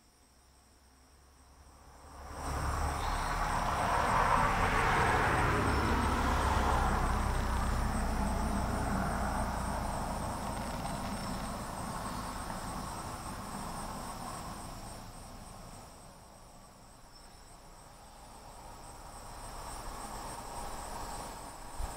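A vehicle passing, its noise swelling quickly about two seconds in and then fading slowly over the next dozen seconds, with a smaller swell near the end. Crickets trill steadily and high-pitched underneath.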